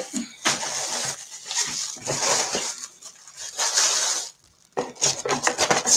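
Tissue paper and packaging rustling and crinkling as it is handled, in several uneven bursts.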